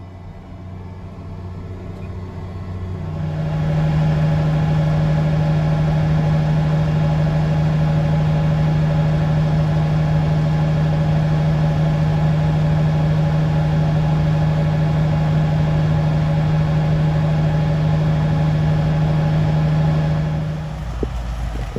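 An engine speeding up over the first few seconds, then running steadily at high speed with a strong even hum, and dropping back to a lower speed near the end.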